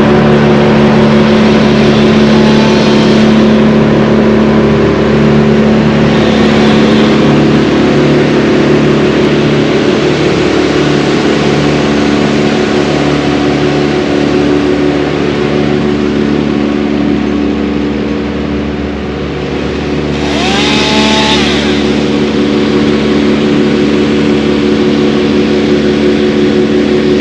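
An engine running steadily at a constant speed, with a short gliding whine about twenty seconds in.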